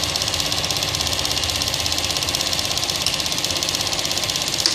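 Small motor-driven pump running steadily with a rapid, even pulse, drawing diesel through a fuel-water separator filter.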